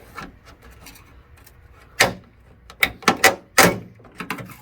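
Chrome trim strip on a car's trunk lid being pried at, its retaining clips and the prying tool giving sharp snaps and clicks: one about two seconds in, then a quick run of them a second later.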